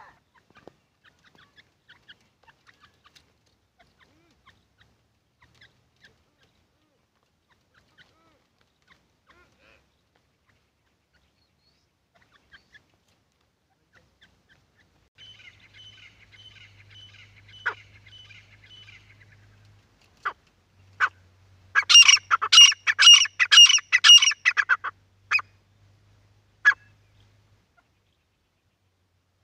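Grey francolins (titar) calling: faint scattered notes at first, then a fast run of repeated notes from about halfway, then a loud series of rapidly repeated calls near the end.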